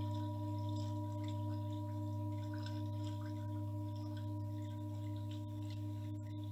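Singing bowl ringing on after a strike: a steady low hum with several higher overtones, fading very slowly.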